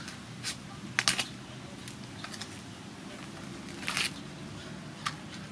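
A knife cutting and scraping into the tough, dry husk of a large fresh bamboo shoot, making a few short crisp cracks, with a longer rasping tear about four seconds in as a husk sheath is pulled away.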